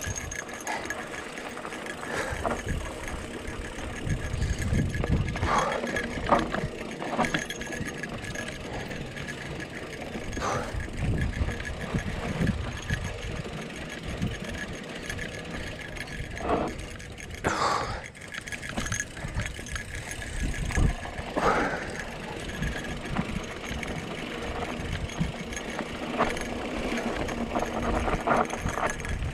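Mountain bike rolling down a dry dirt singletrack: tyres on the dirt and the bike rattling over bumps with scattered knocks, over a steady low rumble of wind on the microphone.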